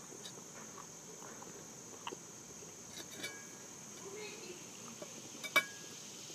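Crickets or similar insects trilling steadily in a high, even drone. A few faint clicks are scattered through it, with one sharper click about five and a half seconds in.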